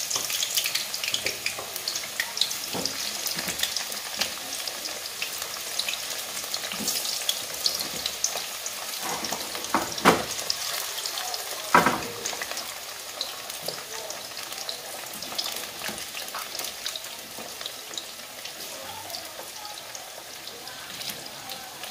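Sweet potato slices deep-frying in hot oil in a pan: a steady, dense crackle and sizzle that eases slightly toward the end, with two louder sharp cracks about ten and twelve seconds in.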